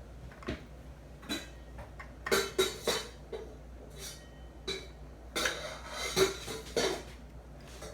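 Irregular clinks and knocks of kitchen utensils and food against a dish while ingredients are added, some strikes ringing briefly, most of them in the second half.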